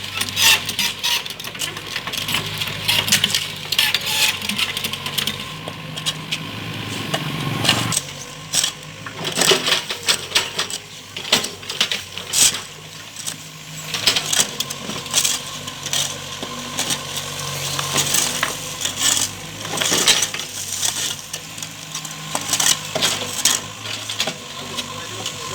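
Mini excavator at work: its engine running steadily under many sharp metallic clinks and clattering knocks, as the bucket and tracks work against stony ground.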